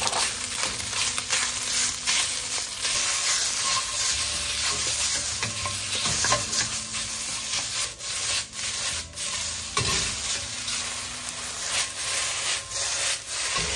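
Marinated beef slices sizzling in hot oil in a wok as they are stirred and broken up, with frequent scrapes and clicks of the utensil against the wok.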